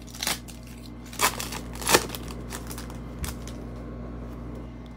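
Foil wrapper of a Panini Prizm basketball card pack being torn open and crinkled: a few sharp crackles over the first three seconds, then quiet.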